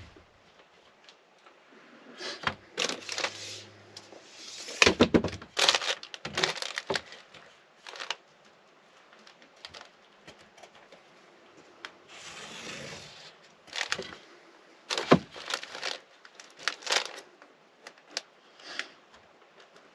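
Foil-backed sound deadening mat being handled and worked: irregular crinkling and rustling with sharp clicks and knocks, and a longer, smoother stretch of rustling about twelve seconds in.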